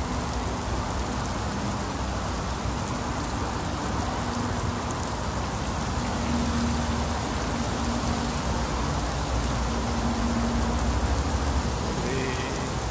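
Very heavy rain falling steadily on roofs, foliage and a wet paved lane, with a faint steady low hum underneath.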